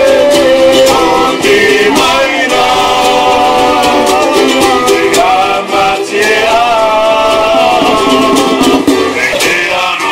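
Group of men singing together to strummed ukuleles and small hand drums tapped by hand, in a steady rhythm.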